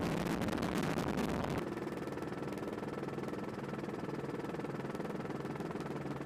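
Steady drone of a helicopter's engine and rotor. A louder rushing noise covers the first second and a half, then cuts off suddenly.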